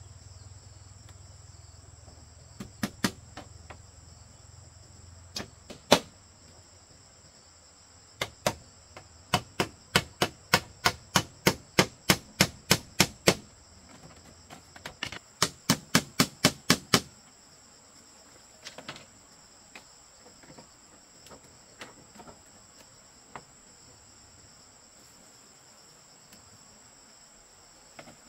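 Hammer blows on a bamboo frame, in runs of quick strikes of about two or three a second and a faster burst, then a few lighter taps. Insects shrill steadily throughout.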